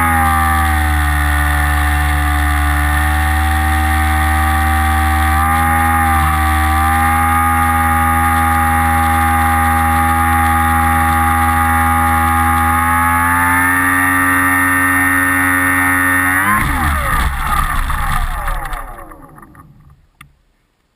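An FPV model aircraft's motor and propeller drone at a steady throttle, the pitch dipping and recovering slightly now and then. About sixteen seconds in, the pitch breaks up and falls as the motor spools down, and the sound fades out over the next few seconds.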